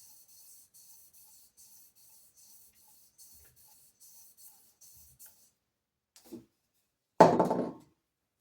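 Sandpaper strip driven by a shoelace rubbing back and forth on a crankshaft journal lubricated with WD-40, a faint, even scraping at about two and a half strokes a second that stops after about five seconds. About seven seconds in there is one brief, loud thud.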